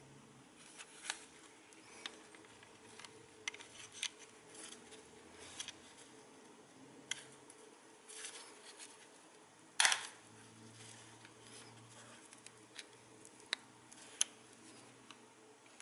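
Small plastic clicks, taps and rubbing from hands working a diopter lens into the eyepiece of FPV goggles, scattered and irregular, with one louder knock about two-thirds of the way through.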